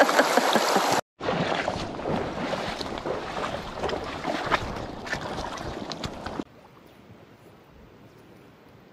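Rushing stream water close to the microphone, cut off abruptly about a second in. Then running water with clicking footsteps on river cobbles, which gives way a little past six seconds to a much fainter steady hiss of water.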